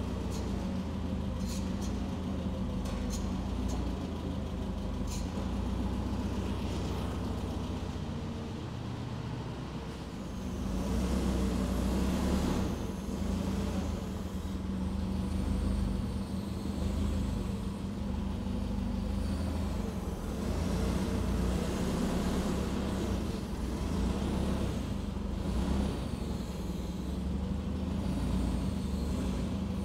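Engine of the machine lifting the skid steer's cab running steadily. It grows louder about ten seconds in and stays that way as the machine works.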